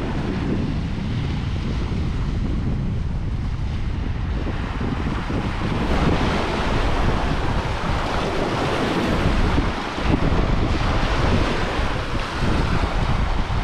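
Small waves washing onto a sandy beach, with wind noise on the microphone.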